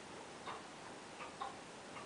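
Three faint, light metallic clicks, the last two close together, from a watchmaker's screwdriver working in the centre of a wheel of a watch movement.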